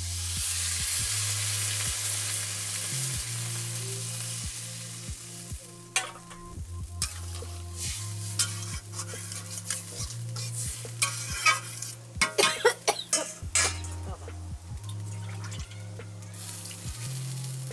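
Water poured into a hot kadai of frying vegetables hisses and sizzles loudly, the hiss slowly dying down. About six seconds in, a metal spatula starts stirring the curry, scraping and clinking against the pan in quick bursts.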